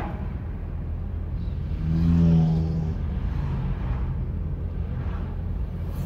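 Road and engine noise inside a moving car's cabin: a steady low rumble, with a louder, deeper hum swelling for about a second about two seconds in.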